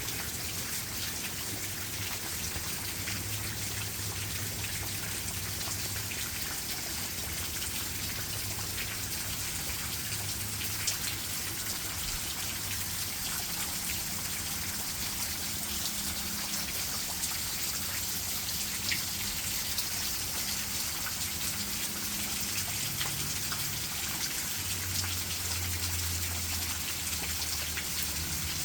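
Steady rain falling, an even hiss with many individual drops heard as fine ticks.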